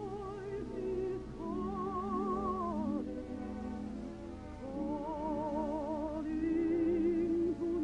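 A soprano singing offstage in an operatic style, holding long notes with a wide vibrato and gliding between them, over sustained instrumental chords.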